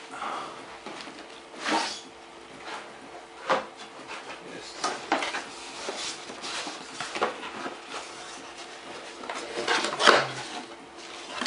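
Cardboard box and packaging being handled during unboxing: scattered rustles, clicks and knocks, the loudest knock near the end.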